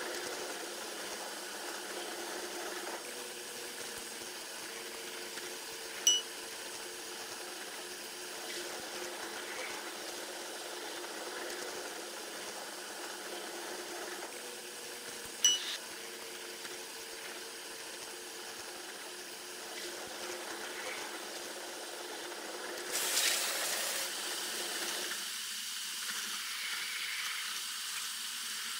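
Train running along the track, recorded at the locomotive and played back ten times faster, so its running noise becomes a steady high hiss. Two sharp clicks come about six and fifteen seconds in, and a brief louder rush of noise comes about twenty-three seconds in.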